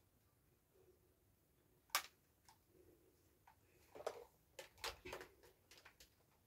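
Faint plastic clicks and knocks from a blue stick vacuum cleaner being handled, its cord wound onto the handle, with its motor off; one sharp click about two seconds in, then a run of clicks and taps in the last couple of seconds.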